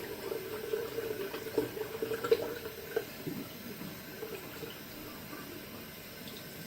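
Water running steadily from a tap into a sink, with a few small clicks and knocks over it.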